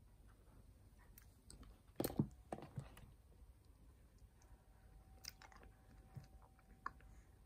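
Quiet room with faint scattered clicks and rustles of wooden knitting needles and a knitted piece being handled, with a few louder knocks about two seconds in.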